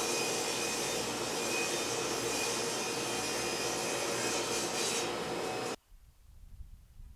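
A woodworking shop machine running steadily, a loud even rushing noise with a faint steady whine, which cuts off suddenly almost six seconds in, leaving a quiet low rumble.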